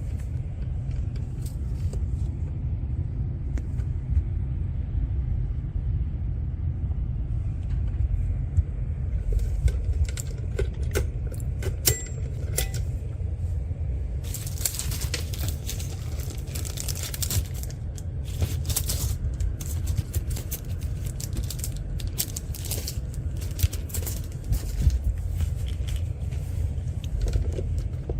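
Small metal parts and tools handled on a workbench: irregular clicks and clinks, busiest with a brief rustling scrape around the middle, over a steady low hum.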